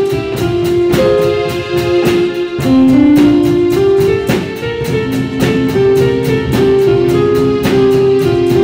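Live band music from a student group with acoustic guitar, drum kit and hand drums such as congas and djembe. A held melody line moves step by step over a steady beat of about four drum hits a second.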